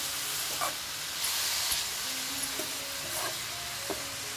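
Chopped wild greens sizzling in hot oil with fried onion and garlic in a steel kadhai, hissing steadily. A steel ladle stirs the greens and scrapes the pan a few times.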